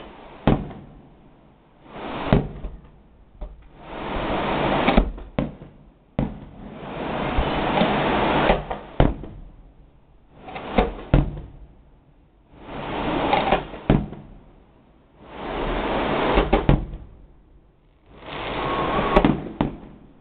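Aerial fireworks going off one after another: a rumbling swell of booms every few seconds, each closing with sharp bangs, and single sharp bangs in between.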